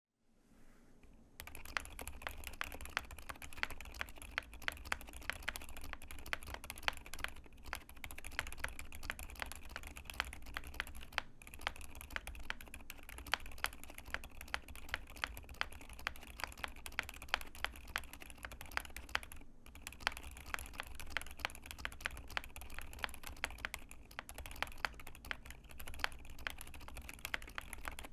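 Continuous fast typing on a YMD96XS mechanical keyboard with lubed Outemu Silent Jade Yellow tactile silent switches, GMK-style PBT keycaps and a walnut case with POM plate. The keystrokes are soft, muted clacks with sharper spacebar strikes now and then, and the typing starts about a second in, with brief pauses a few times.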